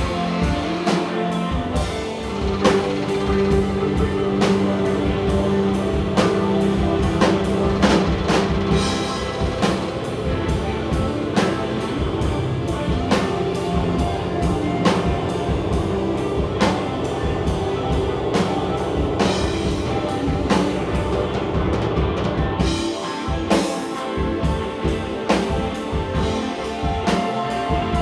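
Live band playing an instrumental number, the drum kit keeping a steady beat under sustained pitched instruments.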